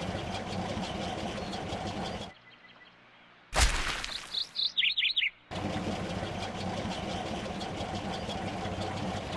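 Cartoon sound effect: a sudden hit followed by a quick run of high, falling bird-like chirps, over a steady background hum that drops out for about a second just before the hit.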